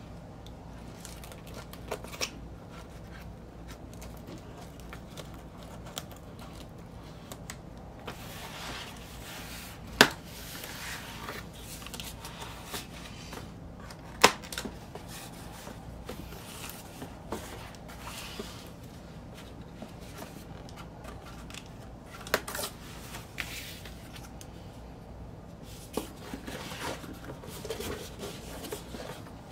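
Unboxing a vinyl record mailer: scissors cutting packing tape, then cardboard and a boxed record rustling and scraping as they are slid apart and handled. A few sharp clicks and two loud sharp knocks partway through.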